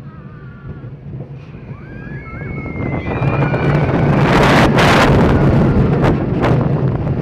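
Family roller coaster train running along its steel track: wheel rumble with wind rushing over the microphone that builds about halfway through as the train gathers speed, and a few sharp clacks from the track.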